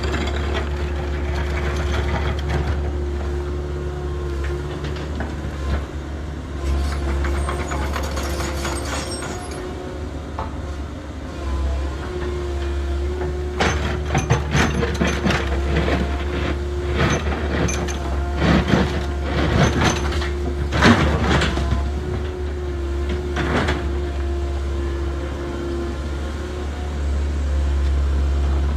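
Radio-controlled 1:14 scale construction machines at work: a steady motor and gear whine with a low hum underneath, and many clicks and scrapes that come thicker and louder in the second half.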